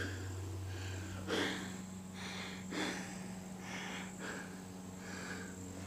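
A person breathing heavily close to the microphone, a slow in-and-out rhythm about every second and a half, catching his breath after hiking through overgrown brush.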